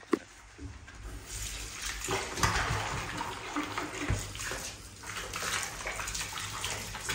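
Bathtub tap running, its stream splashing over a wet cat and into the tub as the cat is rinsed. The water comes on about a second in, after a short sharp knock at the very start.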